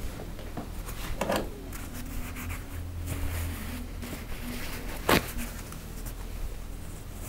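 Objects being handled on a barber's wooden counter: two sharp knocks, one about a second in and a louder one about five seconds in, with light handling sounds between, over a steady low hum.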